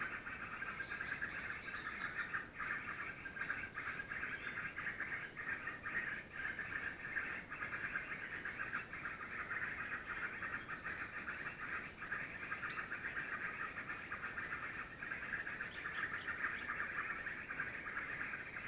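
A steady, high-pitched trilling chorus of forest animals, with a few short higher chirps over it.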